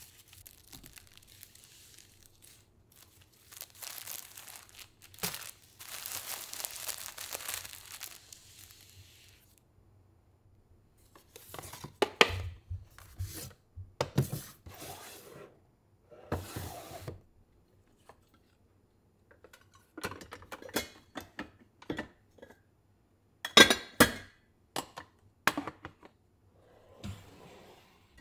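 A stretch of soft rustling as stored items are handled. This is followed by bursts of light clicks, knocks and clatter as plastic food containers and their lids are lifted and set down in a wooden drawer.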